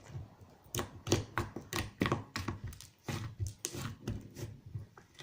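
Blue slime being squeezed and poked: an irregular run of sticky pops and clicks, about two or three a second.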